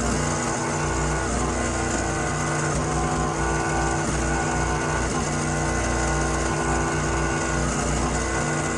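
Small engine of a wood-processing machine running steadily, with a low, pulsing hum under it.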